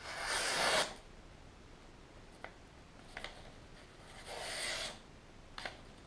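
Spyderco Spyderfly balisong blade slicing through a sheet of paper twice, as a sharpness test: a rustling slice under a second long right at the start, the louder one, and a second about four seconds in, with a few faint paper ticks between.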